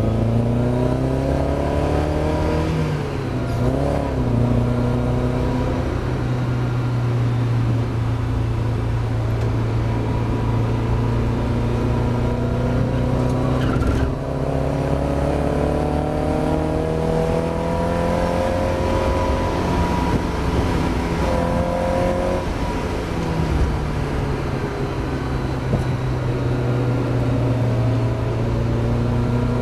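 Mazda MX-5 race car's four-cylinder engine at racing speed, its pitch climbing steadily in each gear and dropping back at gear changes about four, fourteen and twenty-two seconds in.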